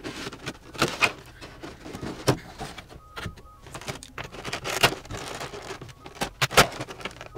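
Clear plastic blister tray and packaging of a boxed figure being handled and pulled out, a string of sharp plastic clicks, knocks and crackles over rustling.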